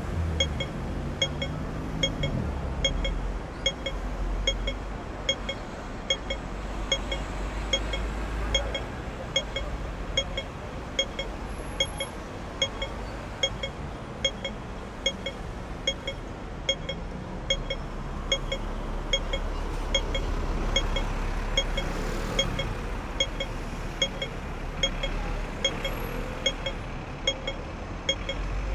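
Pedestrian crossing signal's audible beeper giving short pips at an even pace, about three every two seconds, over the low rumble of street traffic.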